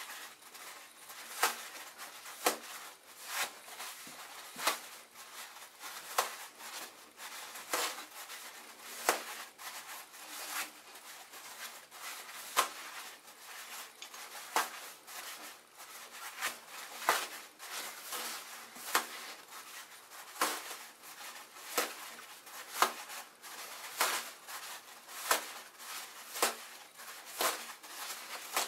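Toilet paper being pulled off the roll and torn by hand: a sharp rip about once a second, with the paper rustling in between.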